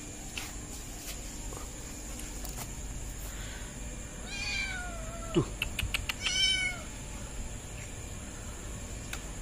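A kitten meowing twice about four seconds in. The first call is long and falls in pitch at the end, and a shorter meow follows about a second later, with a few sharp clicks between them.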